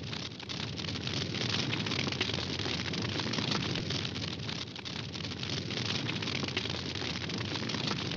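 Campfire burning, with dense, steady crackling and many small pops.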